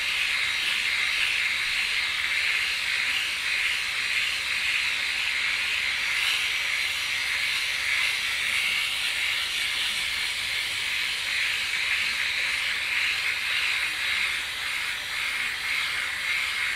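Flawless Legs electric shaver running while drawn along the skin of a leg, a steady high hiss.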